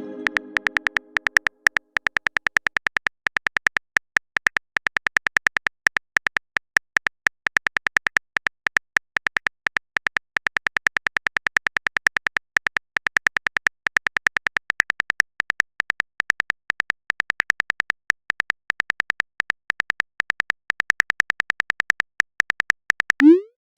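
Rapid, even clicking of a keyboard-typing sound effect, as a chat message is typed out; a short pitched notification chime fades away in the first second or so.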